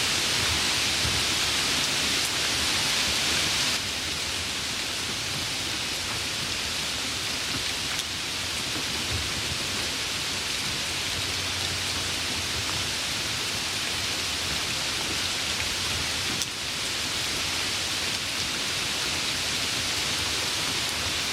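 Steady rain falling, an even hiss. It turns slightly quieter about four seconds in.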